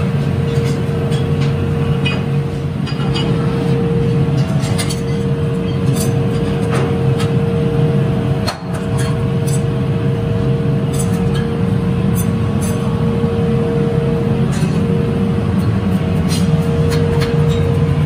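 Factory press machinery running steadily: a low hum under a constant whine, with scattered light metal clinks as hot metal pieces are worked with tongs.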